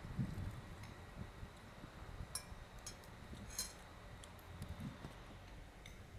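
A few faint scattered clicks, two sharper ones in the middle, over soft low knocks.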